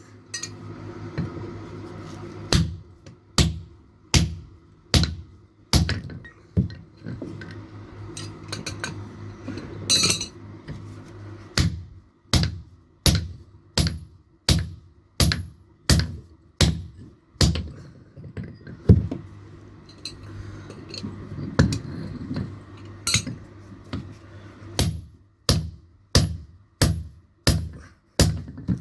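Blacksmith's hammer striking steel on an anvil in a steady rhythm, a little over one blow a second, each blow ringing briefly, with a few short pauses between runs of blows. A steady low hum runs underneath.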